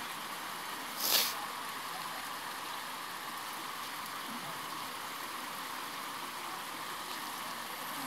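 Small mountain stream running steadily, with a short scuffing noise about a second in.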